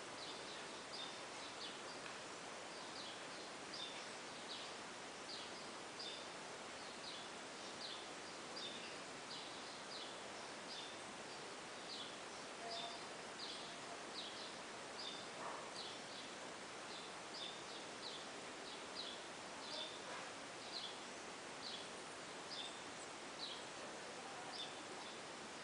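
Pet parakeet chirping: a long run of short, high chirps, just under two a second, over a steady background hiss.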